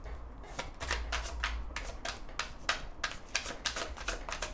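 A tarot deck being shuffled by hand: a quick, even run of card slaps, about four or five a second, beginning about half a second in.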